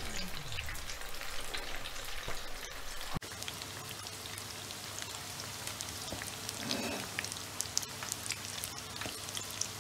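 Breaded chicken croquettes deep-frying in hot oil in a non-stick pan: a steady fine crackling and sizzling of the oil as the breadcrumb coating browns, with a brief break a little over three seconds in.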